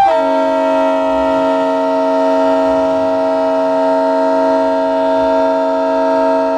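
Semi truck's multi-note air horn, a train-style horn, blowing one long steady chord that starts abruptly and holds without changing pitch.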